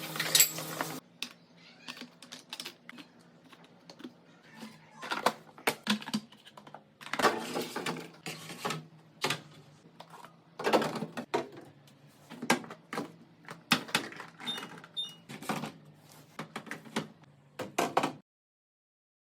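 Fridge organizer bins and food containers being handled and set into a refrigerator: irregular clicks, taps and knocks over a faint steady hum, stopping abruptly near the end.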